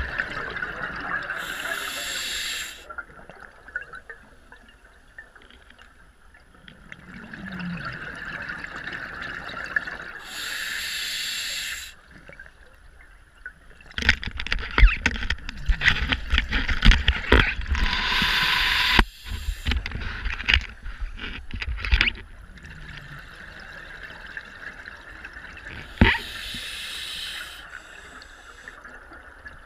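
Scuba diver breathing through a regulator underwater: a hissing inhale followed by a burst of exhaled bubbles, repeating every several seconds. In the middle comes a longer, louder stretch of bubbling and crackling.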